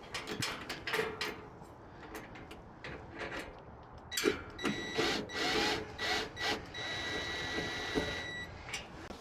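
Metal hardware clicking and rattling as the bolts for the tailgate table's lower shelf are fitted. From about four seconds in, a small tool motor whirs with a steady high whine for about four seconds.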